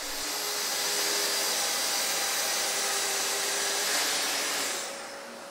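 Festool plunge-cut track saw cutting a panel to length along its guide rail: a steady whirring hiss of motor and blade that winds down in the last second or so.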